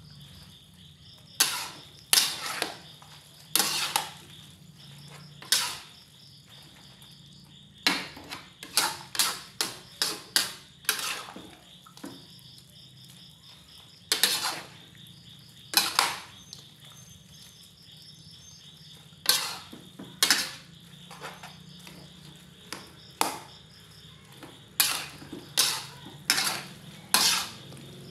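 Metal spatula and ladle scraping and clanking against a metal wok as glass noodles and vegetables are stir-fried, in irregular clusters of sharp scrapes and knocks with short pauses between. A low steady hum runs underneath.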